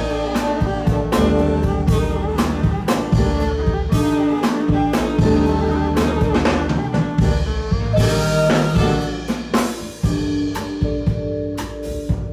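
Ethio-jazz band playing: a drum kit drives a busy groove under long held saxophone notes.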